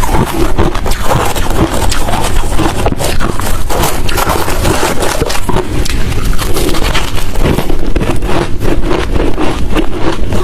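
Hard crushed ice and shaved ice chunks being chewed close to the microphone: loud, crunchy, a rapid run of crunches several a second without a break.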